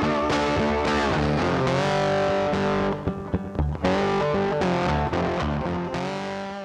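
Background music led by a distorted electric guitar playing held, bending notes, starting to fade out near the end.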